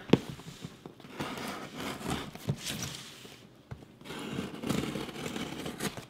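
A knife blade slitting and scraping along the packing tape on a cardboard box, in a series of scraping strokes, with a sharp click just at the start.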